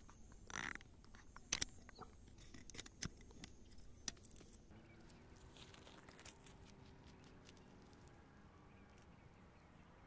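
Handling noise from the recording phone as it is set down on stony ground: a string of clicks, knocks and scrapes, loudest about a second and a half in, which dies away after about five seconds into faint outdoor background.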